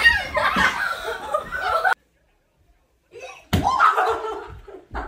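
Children shouting and laughing, with a low thump as a child tumbles off a bed. Then, after a second of dead silence, one sharp smack followed by laughter.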